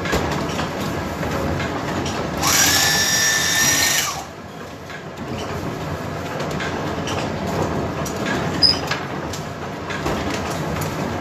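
A portable electric bag-closing sewing machine runs for about a second and a half as it stitches a flour sack shut: a high-pitched whine that rises quickly at the start and cuts off suddenly. Beneath it is the steady rumble and clatter of the working windmill's machinery.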